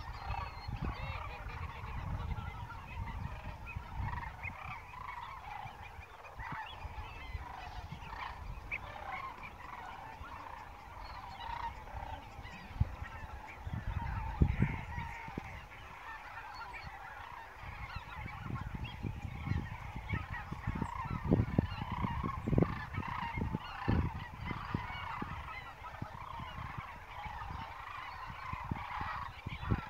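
A large flock of waterfowl calling continuously, many overlapping calls at once. Low rumbling thumps on the microphone come and go, strongest about halfway through and again a little later.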